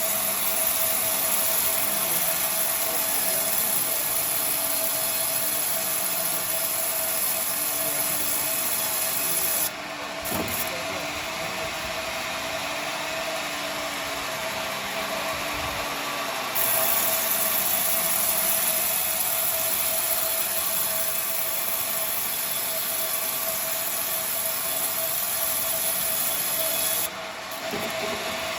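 Sawmill bandsaw cutting coconut-palm timber: a steady hum with a hissing rasp of the blade in the wood. There are two long cuts, and the hiss drops away for several seconds between them, about ten seconds in.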